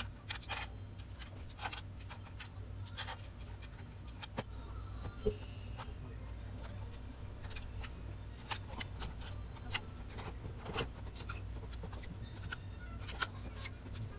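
Scattered small clicks, taps and rubbing from a Roland electronic drum pad and its small parts being handled and turned by hand, over a steady low hum.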